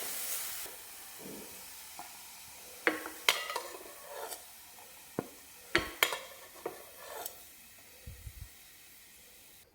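A utensil scraping and knocking against a frying pan as sautéed carrot and spring onion are scooped out onto a plate, with a faint butter sizzle that dies away within the first second. The knocks come as a scattered handful of sharp clicks over several seconds.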